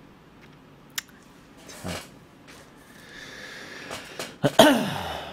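A man's short breathy vocal sound near the end, falling in pitch, after a single click about a second in.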